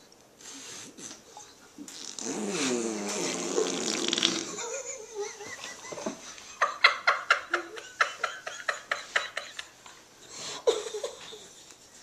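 Silly vocal noises: a wavering, warbling voice sound, then a run of quick sputtering pulses at about five a second.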